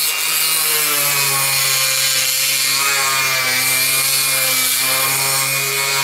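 Dremel rotary tool running with its bit grinding inside the tail boom socket of an R/C helicopter frame, cutting a tapered hole parallel. A steady motor whine over a gritty cutting hiss, its pitch wavering slightly as the bit bites.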